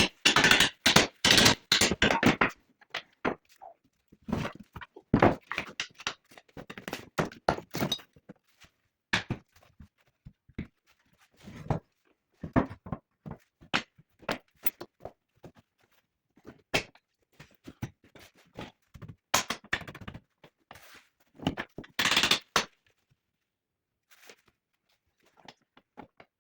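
Irregular knocks, thunks and short bursts of clatter from metal parts being handled and struck during workshop work on a sheet-metal bending brake, fading out near the end.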